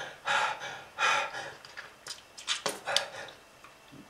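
A person's labored breathing: harsh, noisy gasps for air about once a second, then a few short sharp catches in the throat. Breathing of a person struggling for air with lung disease.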